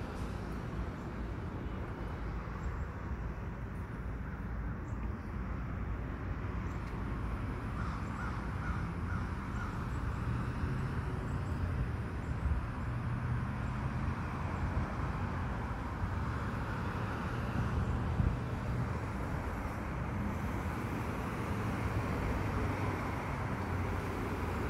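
Road traffic going by: a steady low rumble of passing vehicles that swells and fades, with a truck passing near the end. A bird calls a few times about eight seconds in.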